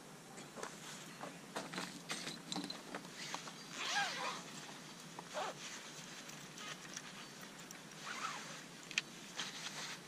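Scattered rustles and small clicks of objects being handled, with a brief pitched sound that bends up and down about four seconds in as the loudest moment, a smaller one near eight seconds and a sharp click about nine seconds in.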